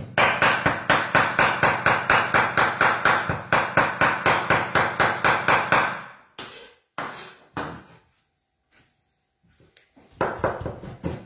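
Large kitchen knife chopping raw beef on a wooden cutting board, hand-mincing it for tartare, in a fast, even run of about five strokes a second. About six seconds in, the chopping breaks off into a few scattered knocks and a short quiet pause, then starts again near the end.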